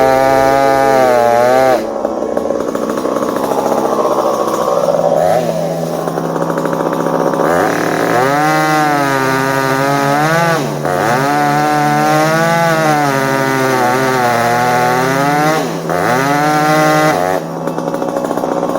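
Two-stroke chainsaw running hard while cutting red elm, its pitch sagging and recovering again and again as the chain loads in the wood, with a few brief deeper drops in revs.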